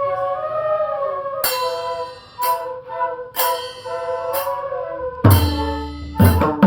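Bansuri bamboo flute playing a melody, joined about a second and a half in by mridanga drum strokes, roughly one a second, with two deep bass strokes near the end.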